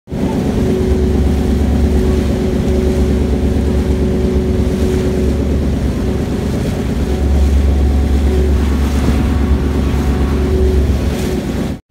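Car ferry's engine running steadily with a deep hum, heard on board, with wind buffeting the microphone and water rushing past the hull. It cuts off suddenly near the end.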